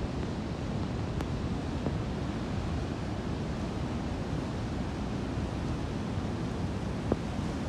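Steady rushing of a mountain torrent in flood, mixed with wind buffeting the microphone. A single short click near the end.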